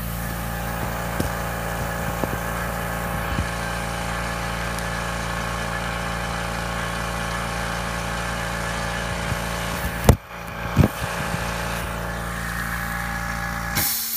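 Electric air compressor running with a steady hum and a faint regular beat, then shutting off abruptly near the end. Two sharp knocks sound about ten seconds in.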